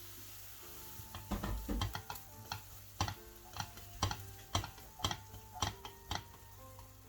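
A utensil knocking against a heavy pan as duck is tipped in and stirred into the vegetables. A quick cluster of knocks comes about a second in, then single knocks about twice a second.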